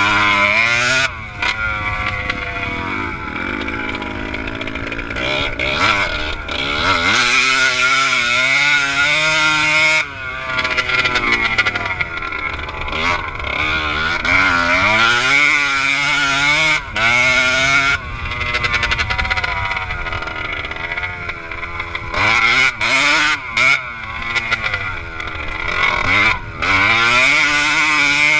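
Kawasaki KDX125 two-stroke single-cylinder engine heard from on board the bike, revving up and down repeatedly as it is ridden, its pitch climbing and falling, with several brief throttle cuts.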